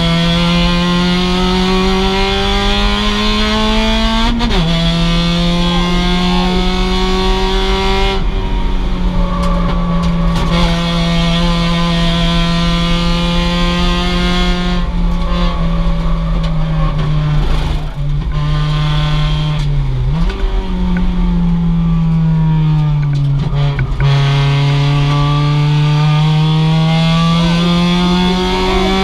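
2006 Mazda MX-5's stock four-cylinder engine at race pace: revs climb and drop sharply at a gear change about four seconds in, hold fairly steady, dip briefly and come back around twenty seconds in, then sink and climb again toward the end.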